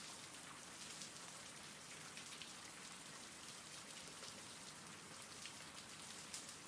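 Faint steady rain: an even hiss with scattered pattering drops.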